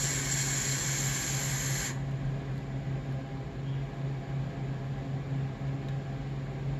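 Airflow and coil hiss of a long draw through a Juggerknot V2 dual-coil top-airflow RTA as the coils fire, stopping about two seconds in. A low steady hum runs underneath.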